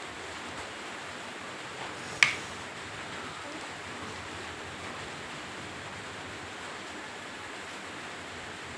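Steady hiss of rain outside, with a single sharp click, the loudest sound, about two seconds in.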